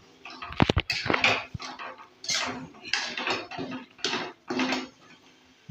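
Metal spoon scraping and stirring a thick spiced mixture in a metal kadai, in repeated strokes, with a few sharp taps against the pan about half a second in.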